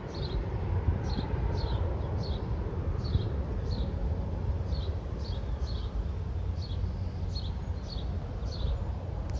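Low, steady rumble of a departing Boeing 787's jet engines as it climbs away. A small bird chirps over it the whole time, in short high chirps every half second or so.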